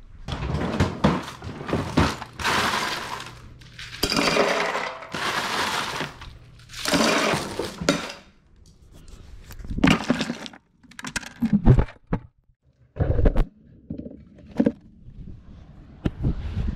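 Ice cubes poured and rattling into a hard plastic cooler around glass jars in several loud rushes, followed by a string of sharp knocks and clinks.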